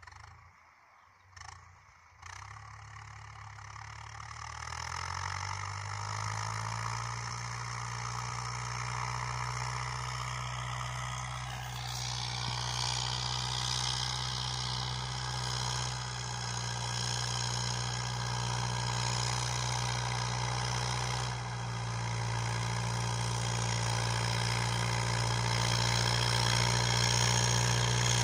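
Steyr 8073 tractor's diesel engine running steadily under load as it pulls a 14-inch plough through the soil, coming in over the first few seconds and growing louder toward the end as the tractor draws near. A few short clicks come in the first two seconds.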